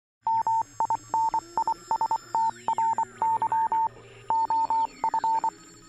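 Electronic beeping tone keyed in short and long pulses like Morse code, over a low hum, with a few electronic tones gliding downward about two seconds in.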